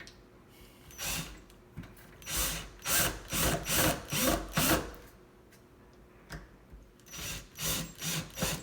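Power drill-driver running in short bursts as it drives the new deadbolt latch's screws into the wooden door edge. There is a run of quick bursts, a pause, then a few more near the end.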